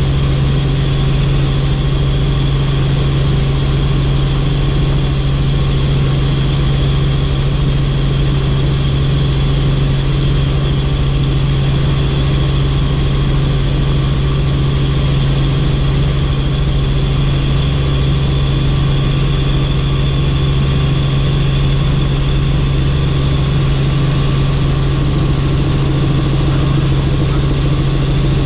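Helicopter in flight: a loud, steady drone with a strong low hum and a few faint high tones above it, unchanging throughout.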